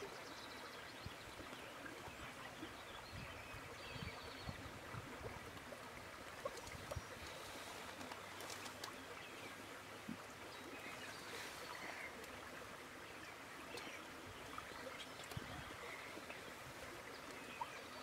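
Faint outdoor field ambience: a steady hiss with scattered faint, short bird chirps.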